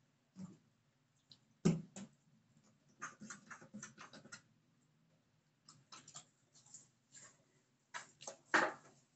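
Irregular short rubbing and tapping sounds from hands scrubbing and lathering a wet dachshund's coat, with a shampoo bottle being handled; the loudest knocks come about two seconds in and near the end.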